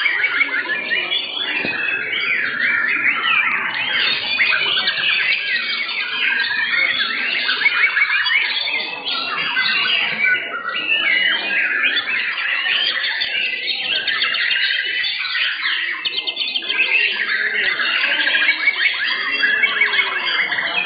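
Many caged white-rumped shamas (murai batu) singing at once. The rapid whistles, trills and chirps overlap in a dense, unbroken chorus.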